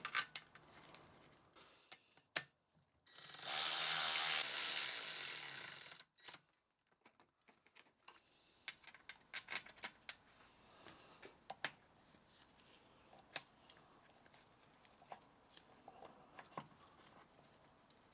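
Gearbox casing bolts being tightened with a ratchet: a loud steady mechanical burst lasting about three seconds, then scattered ratchet clicks.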